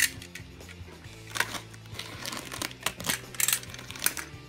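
Plastic mailer bag crinkling and rustling in several short bursts as it is handled and opened, over steady background music.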